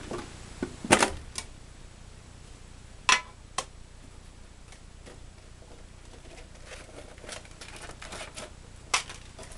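Metal Yu-Gi-Oh collector's tin being handled: a few sharp clicks and knocks of the tin and its lid, the loudest about a second in and at about three seconds, another near the end.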